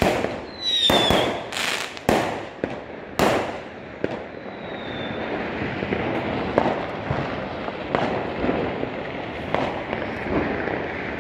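Fireworks going off: several loud bangs in the first few seconds, with a short whistle twice, then a steady crackle with scattered softer bangs.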